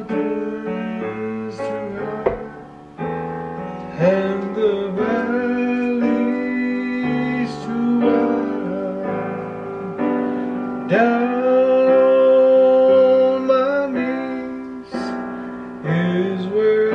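A man singing a slow gospel song, accompanying himself with piano-voiced chords on an electronic keyboard; his long sung notes are held over the chords.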